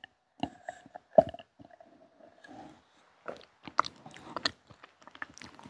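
Close-miked eating and drinking mouth sounds: swallows of a drink and scattered wet mouth clicks, the loudest about a second in.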